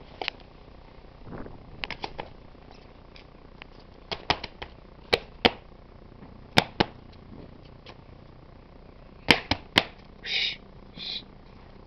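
A series of sharp clicks and taps, several in quick pairs, followed near the end by two short high squeaks.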